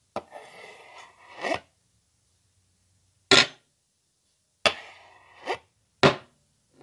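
Knife cutting sound effects: a drawn-out slicing scrape of about a second and a half, a sharp chop, another shorter scrape, then a second sharp chop, with dead silence between them.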